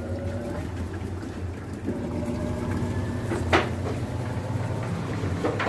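Sharp automatic washing machine running on a test after repair: a steady motor hum, with a steady tone joining about two seconds in. There is a sharp click midway and another near the end.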